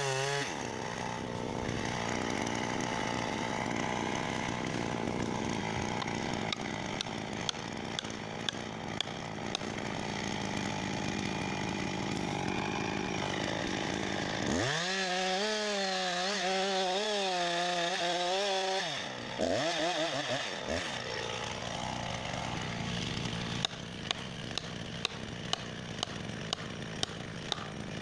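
Chainsaw running and cutting wood, its engine pitch wavering as it works under load, louder and clearer for a few seconds around the middle. Short sharp ticks come in runs of about two a second.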